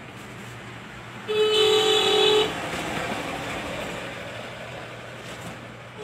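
A vehicle horn sounds once, a steady blast of just over a second, and the noise of the vehicle fades away over the next few seconds.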